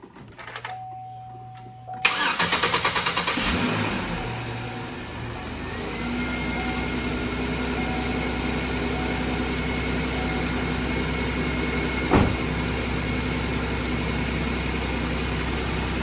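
2005 Chevy Equinox's 3.4-litre V6 cranking about two seconds in, catching straight away and flaring up, then settling to a steady idle: it starts right off on the freshly replaced battery. A faint hum and a brief tone come before the crank, and there is a single sharp click near the end of the idle.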